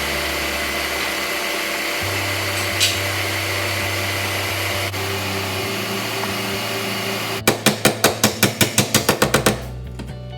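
Background music: sustained bass notes over a steady whirring noise, then a fast, even beat comes in about seven and a half seconds in.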